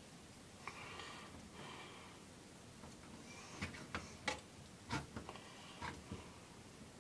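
Small metal clicks and taps of a screwdriver and carburetor parts being handled while the diaphragm cover screws are tightened, after two short rasping sounds in the first two seconds.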